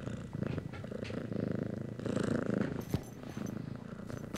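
Tabby cat purring steadily, with one sharp click about three seconds in.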